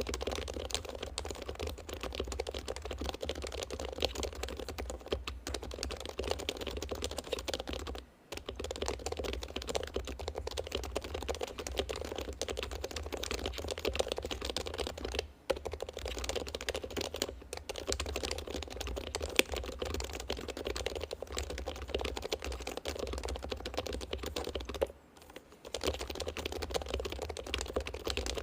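Mechanical keyboard being typed on at a steady, fast pace: a dense run of key clacks, broken by three short pauses.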